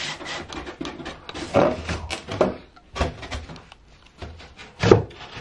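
A plastic PVC panel being handled and pushed into place against a wall: irregular knocks, clicks and scraping rubs, with one sharp knock about five seconds in.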